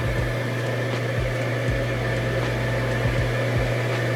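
Edge banding machine running with a steady electric motor hum, with a few soft low thuds through it.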